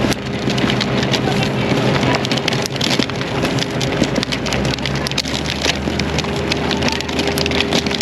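A small gas engine running steadily under a dense gritty crackling and rattling, typical of sand and debris being worked over pavement during a parking-lot clean-up.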